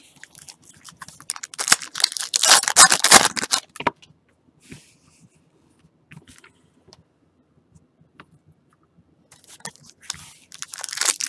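Foil wrappers of 2019 Topps Series 2 baseball card packs being torn and crinkled and cards handled, in two spells of dense crackling, about two seconds in and again near the end, with only scattered clicks between.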